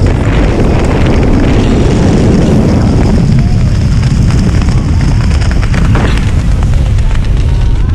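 Wind buffeting the camera's microphone during a parachute descent under canopy: a loud, steady, low rumble.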